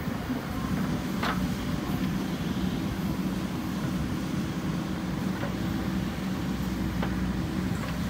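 JCB 3DX backhoe loader's diesel engine running steadily under load while the backhoe arm swings and lifts its bucket. A short light clank about a second in and a fainter one near the end.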